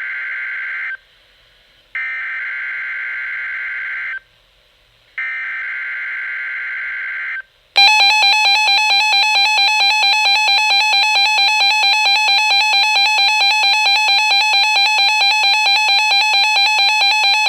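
NOAA Weather Radio SAME header data bursts through the radio's speaker: the end of one buzzy digital burst, then two more about two seconds long with short gaps, marking the start of an emergency alert. Right after the third header, the weather radio's own alert siren goes off, a very loud pulsing tone at about four pulses a second, signalling an incoming warning.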